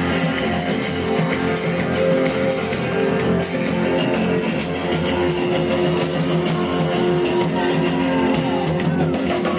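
Live band playing the instrumental introduction of a song, with no singing yet.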